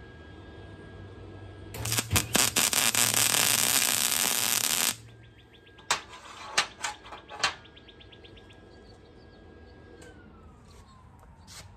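Wire-feed (MIG) welder laying a weld bead: a loud, steady crackling sizzle like steak frying, starting about two seconds in and lasting about three seconds. Then four sharp metallic clicks.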